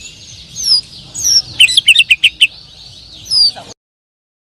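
White-rumped shama (murai batu) song played as a lure track: clear downward-sliding whistles and a quick run of sharp notes over a faint background of chirping. It cuts off suddenly near the end.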